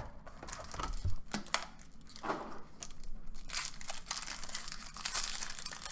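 Foil wrapper of a baseball trading-card pack crinkling and tearing as it is handled and ripped open, a run of short crackles that gets busier in the second half.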